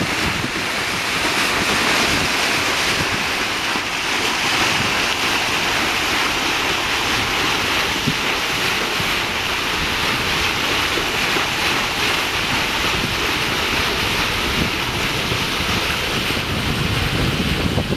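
Water rushing past the hull of a sailing ship under way as its bow cuts through the sea, a steady hiss of bow wave and wake, with wind buffeting the microphone throughout.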